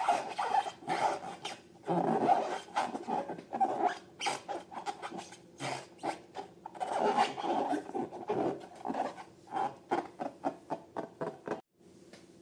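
Latex balloons being handled, squeezed and rubbed, giving irregular rubbery squeaks mixed with sticky, crackly clicks; the sound stops suddenly near the end.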